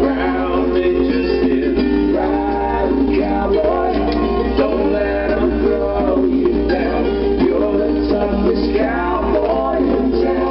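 Music: a song with a male voice singing over guitar.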